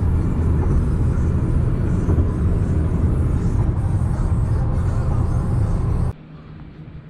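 Loud, steady rumble of a Bell 429 helicopter's engines and rotor. It cuts off abruptly about six seconds in, leaving a much quieter steady low hum.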